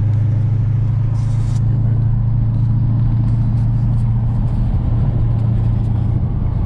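Dodge Challenger Scat Pack's 392 Hemi V8 running at a steady cruise, a constant low drone with no revving.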